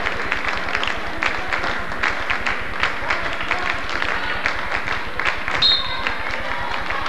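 Gymnasium sound of a basketball game in play: crowd chatter and clapping mixed with the knocks of the ball and players' feet on the hardwood floor. A brief high tone sounds a little before six seconds in, over a low hum from the recording.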